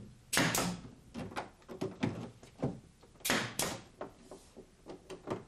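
Pneumatic finish nailer firing nails through pine tongue-and-groove paneling into the wall studs: sharp shots, two close together near the start and two more a little past the middle, with lighter knocks of wood between.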